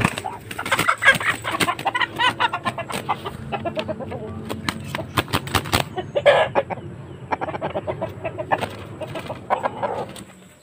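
Chickens clucking and calling at close range, with one louder call about six seconds in. Many sharp clicks run through the first half, and the sounds die away near the end.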